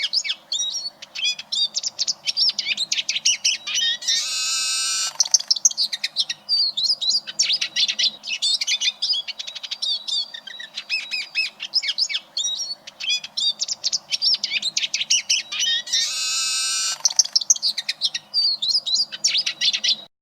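Eurasian siskin singing: a fast, unbroken twittering song, twice interrupted by a long, buzzy wheeze note lasting about a second.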